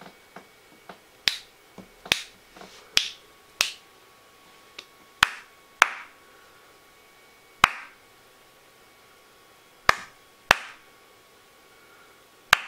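Fingers snapping a dozen or more times at irregular intervals: sharp single snaps, some strong and some weak, spaced from under half a second to about two seconds apart.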